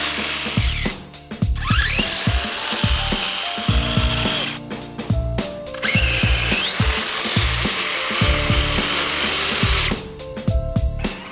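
Brushless electric motor of an RC snowmobile whining as it is throttled up, the pitch climbing steeply twice and holding high before cutting off. Background music with a steady beat plays throughout.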